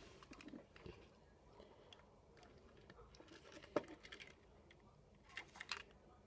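Faint handling of a plastic Trackmaster Gordon toy engine and tender, mostly quiet, with one sharp plastic click about four seconds in and a few lighter clicks near the end.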